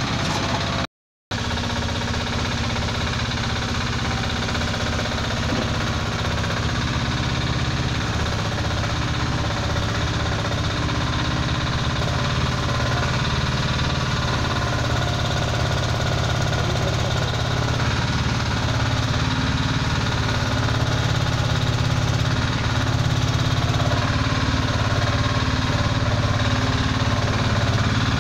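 A small 4x4 stand-on mini loader's engine running steadily as the machine works and drives. The sound drops out completely for a moment about a second in, and grows a little louder near the end.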